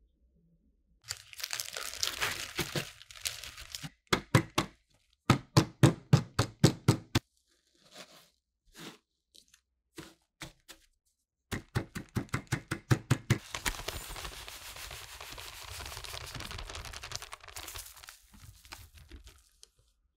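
Oreo cookies in a plastic ziplock bag being smashed with a wooden rolling pin: bag crinkling, then two quick runs of sharp strikes, then a long steady crunching as the crumbs are crushed to powder.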